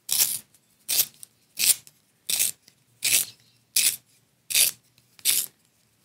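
Pencil sharpener shaving a wooden pencil in short strokes: eight brief scratchy rasps, about three every two seconds, with quiet gaps between.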